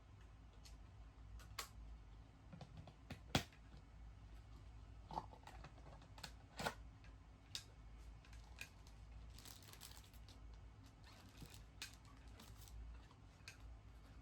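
Quiet room with scattered light clicks and taps from handling things by hand, the sharpest about three and a half seconds in, over a low steady hum.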